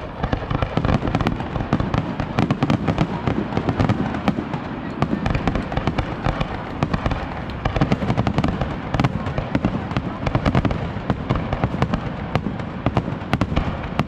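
Fireworks going off in a dense, rapid barrage, many bangs close together with no break.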